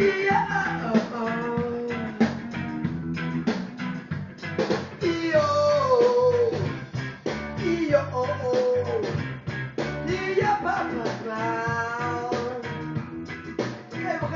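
A man singing a children's song over a guitar-led band backing track with a steady beat.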